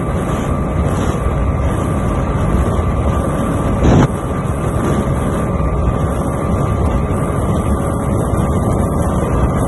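Honda XR 250 Tornado's single-cylinder four-stroke engine held at high, steady revs at top speed, over 140 km/h, with wind rushing over the microphone. A brief louder burst about four seconds in.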